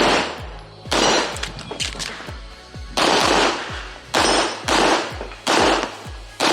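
Metrillo 1911 pistol in 9mm firing about six shots at uneven spacing, each with a short echo, while working through targets. Background music with a steady beat plays underneath.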